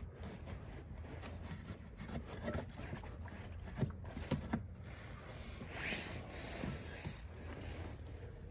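Light knocks and handling noises of a snowblower's fuel tank being fitted back into place: three sharp knocks about four seconds in and a brief scraping rustle about six seconds in, over a low steady hum.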